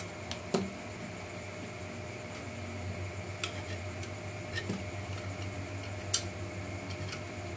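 Scattered light clicks and knocks of hard plastic model parts and a screwdriver being handled on a tabletop, the sharpest click about six seconds in, over a steady fan hum.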